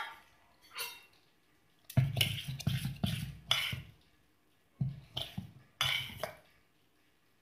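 Steel ladle stirring and scooping thick fermented dosa batter in a stainless steel vessel, scraping and clinking against the sides. It comes in two spells, about two seconds in and again near five seconds.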